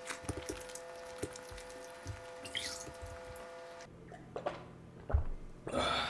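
Close-up wet eating sounds of curry and rice: many soft clicks and squishes from chewing and handling the food, with a louder rustling burst near the end. A faint steady hum runs under the first two-thirds and then stops.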